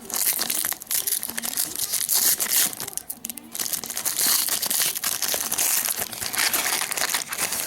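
Plastic foil wrapper of a Panini Prizm basketball card pack crinkling loudly as it is handled and torn open, in two long stretches with a short pause about three seconds in.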